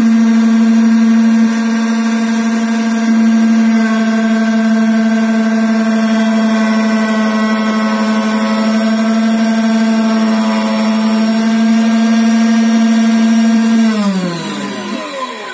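Automatic CNC key-cutting machine's cutter spindle running steadily as it mills a brass reversible key blade, a steady whine with many overtones. About a second and a half before the end the motor spins down, its pitch falling as it stops.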